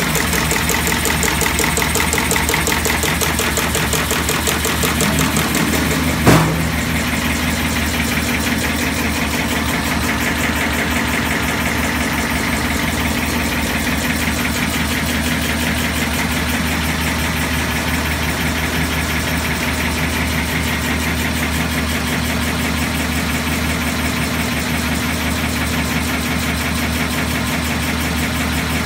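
Sisma BKF/XL laser chain-making machine running steadily, its mechanism cycling rapidly at 330 cycles per minute. One sharp knock about six seconds in.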